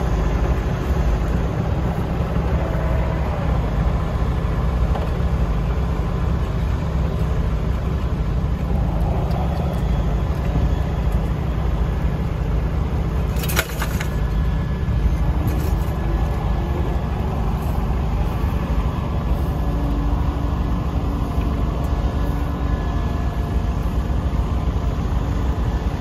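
Fordson N tractor's four-cylinder side-valve engine running steadily under load while pulling a plough, a low even drone. A single sharp click comes about halfway through.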